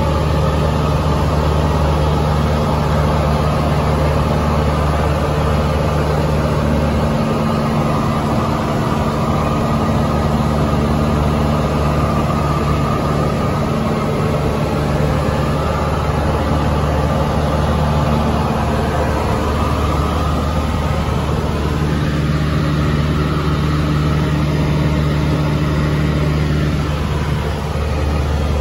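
Single-engine light aircraft's piston engine and propeller droning steadily in cruise flight, heard inside the cockpit.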